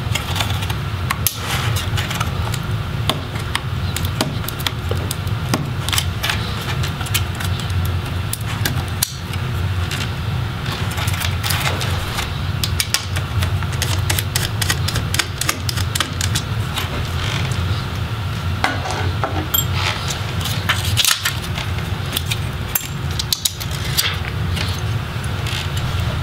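Scattered small clicks and taps of a screwdriver on small laptop screws and of metal and plastic parts being handled, over a steady low hum.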